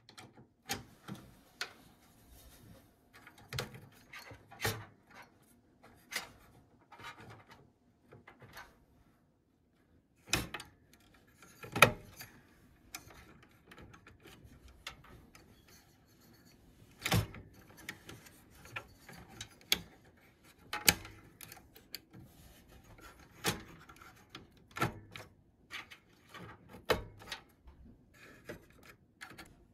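Irregular sharp plastic clicks and knocks as the CPU heat sink fan's push-pin plungers are pressed down into the motherboard mounting holes to engage their latching hooks, with fingers rubbing and tapping on the cooler. A few of the snaps are much louder than the rest.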